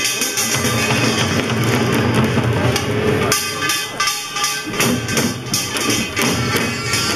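Pungmul (Korean farmers' band) music: hand drums and other percussion struck together in a quick, steady beat.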